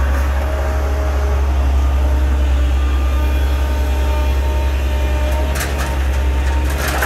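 Doosan DX140 excavator's diesel engine running steadily with a low hum while the boom swings. Near the end, dirt is dumped from the bucket into the steel box of a dump truck, clattering in two spills.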